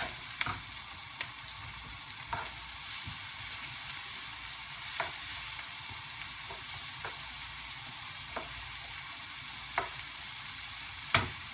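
Garlic and onion frying in olive oil in a frying pan, a steady sizzle, with a spatula stirring and tapping against the pan now and then.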